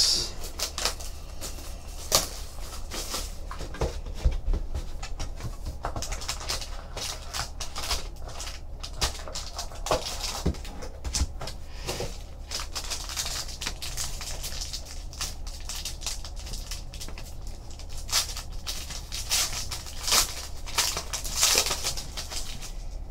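Trading card box and foil card pack being handled and opened by hand: a run of small clicks, taps and paper-and-foil crinkling, with the crinkling busiest near the end as the foil wrapper is torn open.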